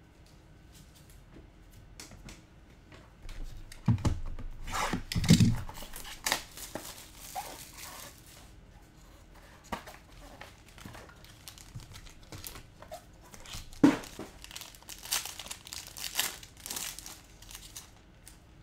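Crinkling and tearing of packaging as sealed trading-card boxes and packs are opened by hand. There are two bouts, about four seconds in and about fourteen seconds in, each starting with a knock.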